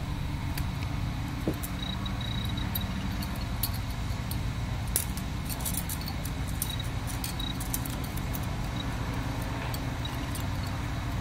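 Small scattered metallic clicks and ticks of steel forceps and thin wire as the wire is twisted tight around a dental arch bar on a plaster model, over a steady low hum.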